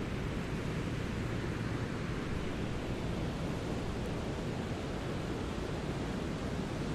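Steady brown noise: an even, deep rushing hiss, strongest in the low end, with no change or rhythm.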